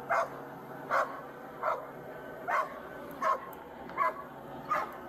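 A dog barking repeatedly: seven short barks at an even pace, about one every three-quarters of a second.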